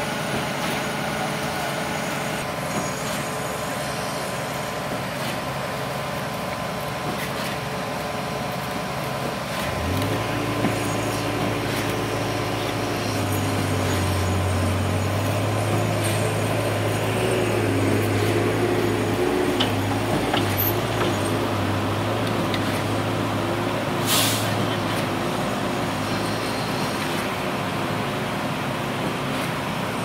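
Diesel engine of an Iveco Trakker truck-mounted concrete boom pump running steadily under load while pumping concrete. About ten seconds in, the engine note drops lower and gets louder, and a brief sharp hiss comes near the two-thirds mark.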